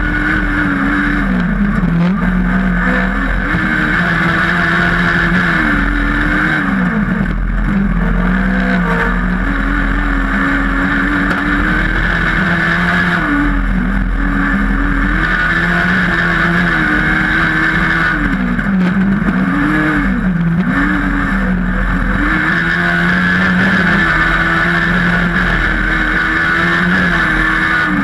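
Motorcycle engine of a caged dirt-track racing kart running hard, its pitch climbing and dipping again and again as the driver works the throttle and gears, heard from onboard over a steady hiss.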